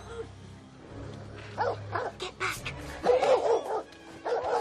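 Dogs barking and yapping in a run of short bursts, over background music.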